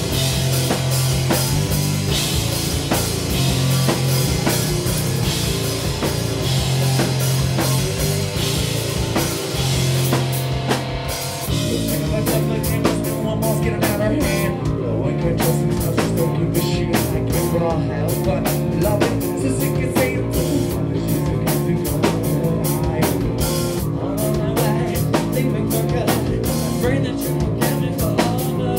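Rock band playing live, loud, with drum kit, electric guitar and bass; about twelve seconds in the arrangement changes and a singer's voice comes in over the band.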